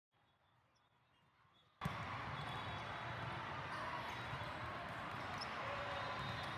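Near silence for almost two seconds, then a sharp knock and the steady crowd din of a large hall during a volleyball rally, with thuds of the ball being served and passed.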